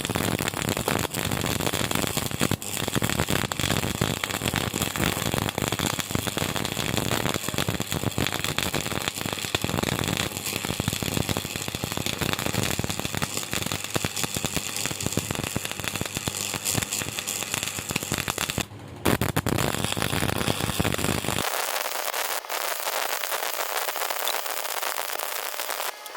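Stick welding arc crackling steadily as the electrode burns. It breaks off briefly about two-thirds of the way through and is struck again, and for the last few seconds the crackle turns thinner and hissier.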